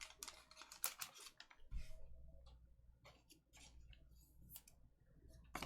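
Faint, scattered clicks and light taps, irregular, with a sharper click near the end.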